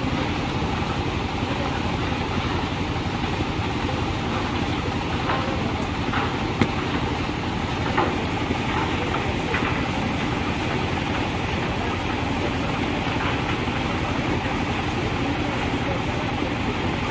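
An engine running steadily, with a few sharp knocks of stone on stone as blocks are set into a masonry wall.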